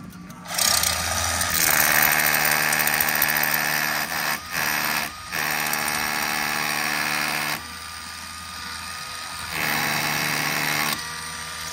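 Power drill run in several bursts, likely boring into the brick wall to fix wall starter ties: it runs hard, stops twice briefly around four to five seconds in, eases off at about seven and a half seconds, and runs hard again near the end.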